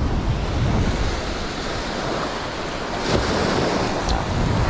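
Surf washing onto the beach, a steady rushing noise, with wind buffeting the microphone.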